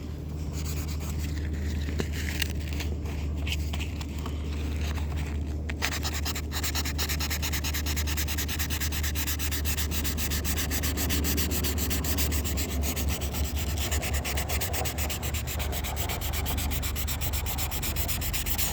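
Van fender flare being sanded by hand with 320-grit sandpaper: scattered strokes at first, then rapid, even back-and-forth strokes from about six seconds in. A steady low hum runs underneath.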